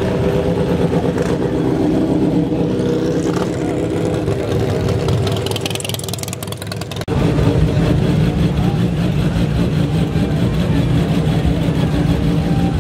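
Motorcycle engines running at low speed in street traffic. After a sudden change about seven seconds in, a steady idle comes from a Kawasaki ZZR1100 drag bike rolling past.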